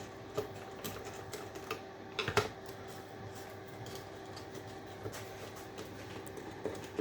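Hand-screwdriver work on a small plastic electrical appliance: scattered clicks and knocks of screws being undone and the casing handled, with a short cluster of louder knocks a little over two seconds in, over a steady low hum.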